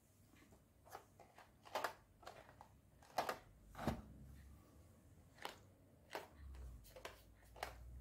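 Assembled plastic LEGO sections of the Slytherin House Banner set knocking and clicking as they are handled and fitted together: a string of about eight separate short clicks.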